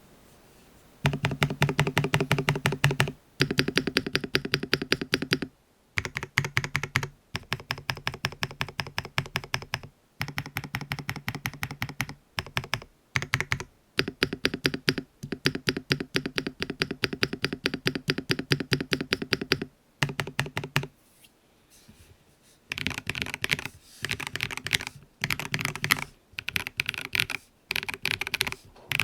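Typing on a KBD67 R3 mechanical keyboard fitted with Tecsee Purple Panda 68 g tactile switches, lubed with Tribosys 3203, which gives a controlled sound without the spring ping of the stock switches. The keystrokes come in fast runs of a few seconds with brief breaks, a pause of about two seconds past the middle, then shorter bursts.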